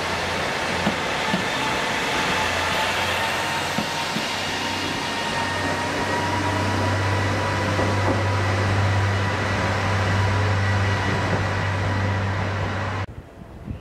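Diesel railcar of the KiHa 40 series running as it pulls out of the station: a steady low engine hum under a faint whine that rises slightly in pitch. The hum grows louder about halfway through, then the sound cuts off abruptly near the end.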